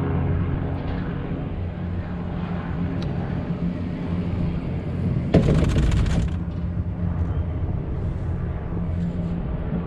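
Tram running along its track: a steady low rumble and hum. About five seconds in, a sudden louder burst of noise lasts under a second.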